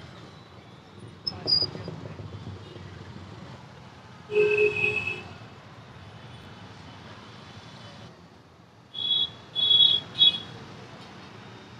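Steady street traffic rumble, with a short two-note honk about four seconds in and three quick high-pitched beeps near the end.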